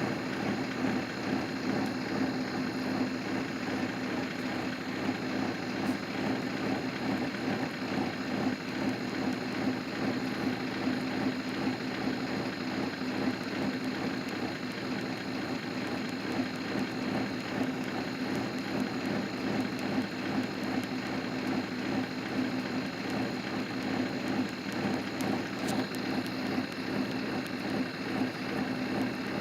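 Steady rain patter over a constant low hum from a running vehicle, with a thin steady high whine.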